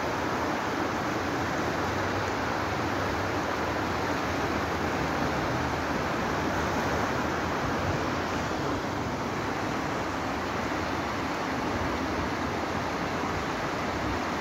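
Steady rush of a fast, shallow river running over a rocky bed, an even, unbroken water noise.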